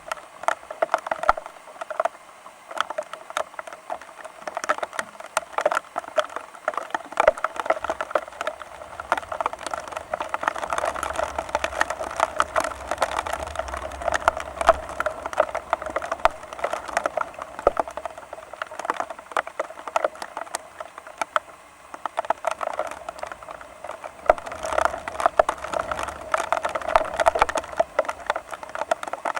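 Rain pattering as dense, irregular drops tapping on a hard surface. A low wind rumble rises about a quarter of the way in, fades, and comes back near the end.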